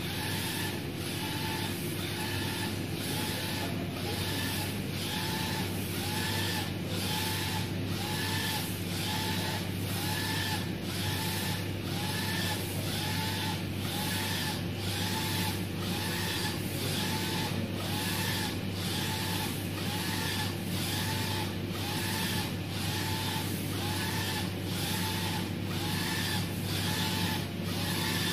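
UV flatbed printer's print-head carriage shuttling back and forth across the bed while printing. Its motor whine rises and falls with each pass, about every two thirds of a second, over a steady low hum.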